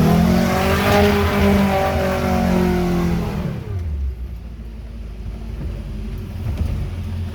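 Off-road 4x4's engine revving high under load, holding its pitch for about three seconds, then dropping off at about three and a half seconds to a low rumble.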